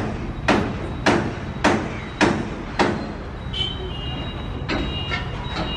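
Passing Indian Railways train behind a WAP-7 electric locomotive, its wheels knocking over rail joints about twice a second over a steady low rumble. The knocks grow fainter and less regular after about three seconds, when thin high squealing tones come in.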